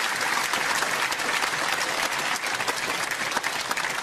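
Snooker arena audience applauding a completed century break: many hands clapping in a dense, steady patter.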